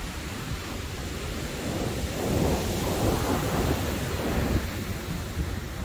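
Surf breaking on the beach: a wave surges up louder about two seconds in and washes away, over a steady low rumble of wind buffeting the microphone.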